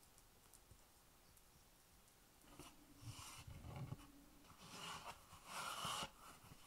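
Faint handling noises on a wooden chopping board, starting about two and a half seconds in: a glass pie dish is slid off the board, then a sheet of puff pastry is unfolded and patted flat. The pastry rustling near the end is the loudest part.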